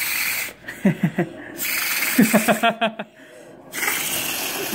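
Breath blown hard through a plastic drinking straw into a lump of glitter slime, in three long hissing blows with short gaps between.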